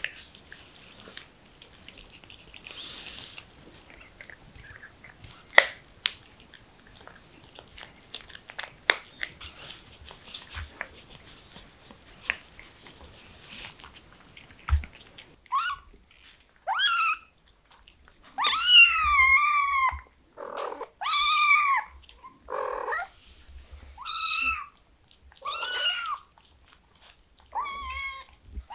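A cat chewing and licking a treat off a stick, faint scattered wet clicks. About halfway through, cats meowing repeatedly at a treat pouch held out to them, about nine meows including one long drawn-out one and a few short low ones.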